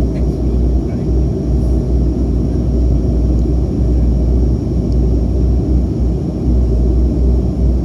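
Steady low rumbling drone of the Bombardier Dash 8 Q300's twin Pratt & Whitney PW123 turboprop engines and propellers running.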